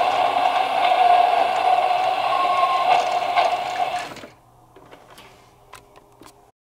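Battery-powered toy Shinkansen train set running, its small motor and plastic gears giving a steady whirr as the train goes around the plastic track. The whirr cuts off about four seconds in as the toy stops, leaving a few faint clicks.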